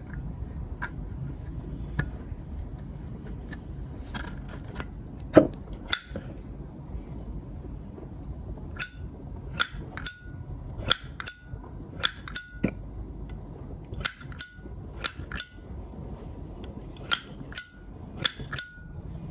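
Zippo lighter's hinged metal lid being flicked open and snapped shut, each time a sharp metallic clink with a brief ring. A few scattered clicks come first, then over a dozen in quick succession from about nine seconds in.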